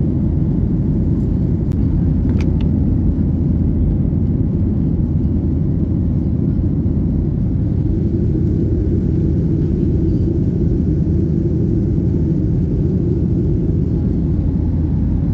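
Steady low rumble of an airliner cabin in flight, jet engine and airflow noise, with a couple of faint clicks about two seconds in.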